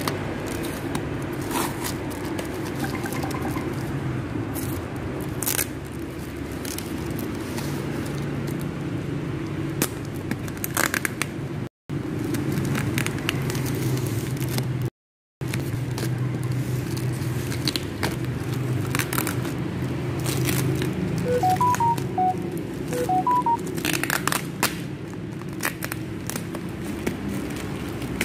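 Scissors snipping and packing tape and plastic wrapping being cut, peeled and torn off a cardboard parcel: repeated crackling, scraping and rustling over a steady low hum. The sound drops out twice briefly, and a few short faint beeps come about three-quarters of the way through.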